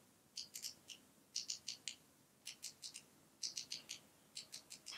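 Pentel Clic retractable eraser's push-button ratchet giving little clicks as it is pressed. The clicks come in quick runs of three to five, about once a second.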